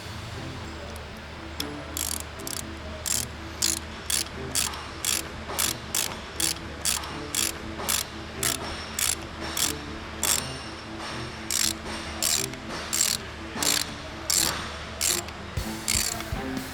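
Hand ratchet wrench clicking in quick strokes, about two clicks a second, as the keeper bolts are run in, with brief pauses between bolts.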